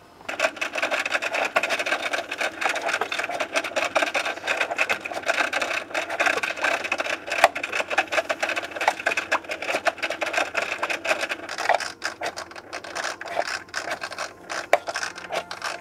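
Aquarium canister filter pump switched on and self-priming: a steady, dense rattling crackle of many small clicks as it draws water in and drives the air out, thinning out over the last few seconds.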